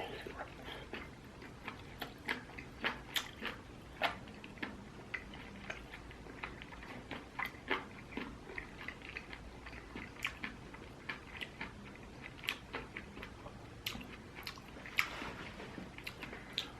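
Chewing and biting of stir-fried pork, kimchi and tofu: a stream of short, irregular wet clicks and crunches.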